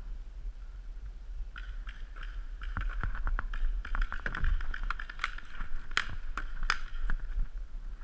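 Paintball markers firing during a game: irregular rapid pops and cracks, with a few louder sharp cracks in the second half.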